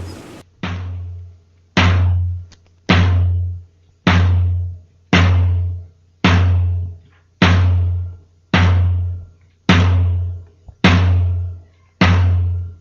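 Slow, steady drum beat: a deep drum struck about once a second, each hit ringing out briefly before the next.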